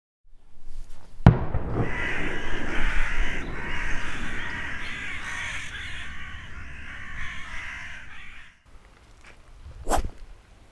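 A sharp click about a second in, then several seconds of dense, harsh cawing calls that stop suddenly; a short sharp crack near the end.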